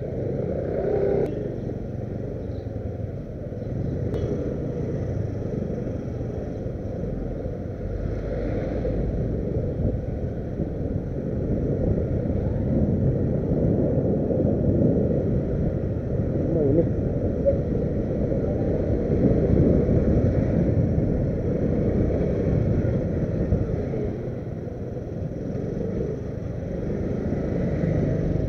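A motorcycle on the move, heard from the bike itself: its engine running under a steady low rumble of wind and road noise. The rumble grows louder about halfway through, then eases off.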